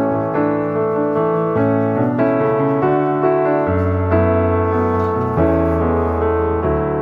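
Background piano music: a gentle melody over held bass notes that change a few times.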